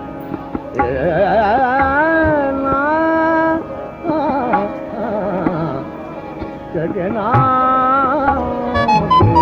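A singer holding long, wavering, ornamented vowel lines over the steady held chords of a harmonium, with tabla strokes coming in near the end.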